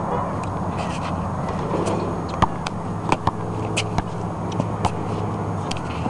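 Steady low hum over a noisy outdoor background, with scattered short clicks and taps.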